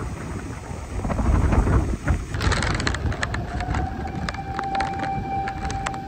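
Typhoon-force wind gusting against the microphone with driving rain, a low rumbling roar with scattered spatters. A little past halfway a fire engine's siren starts, one steady wail that rises slightly and holds.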